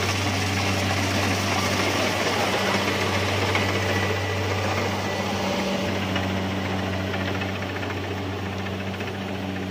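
Rice combine harvester's engine and machinery running steadily with an even low hum, easing off slightly near the end.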